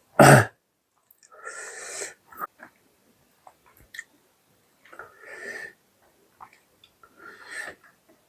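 Close-miked eating: a loud thump just after the start, then small chewing clicks and three breathy, wheezy hisses of breath a few seconds apart.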